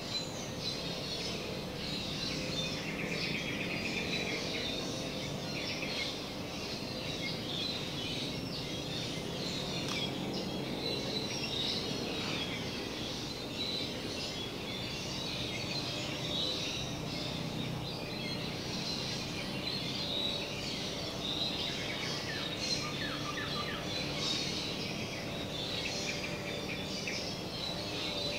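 Forest ambience: many birds chirping and calling at once, over steady low background noise.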